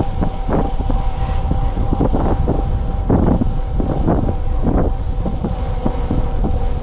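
Wind buffeting a camera microphone on a moving mountain bike, a continuous low rumble with a steady hum under it and irregular rushing bursts every half second or so.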